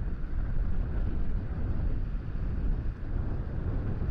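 Wind buffeting the camera's microphone, a gusty low rumble.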